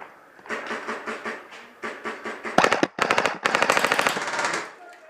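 Airsoft electric rifle firing full-auto in several bursts of rapid mechanical cracks. The longest and loudest burst comes about three seconds in and lasts about a second and a half.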